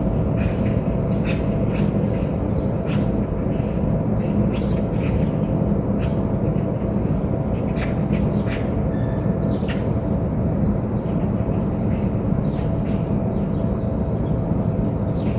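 Small birds chirping in short, scattered calls over a steady low rumble that is the loudest sound throughout.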